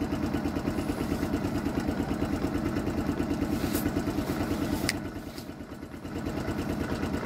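Delivery motorcycle engine idling with a steady, rapid pulse. It dips briefly about five seconds in, and there is a single sharp click just before that.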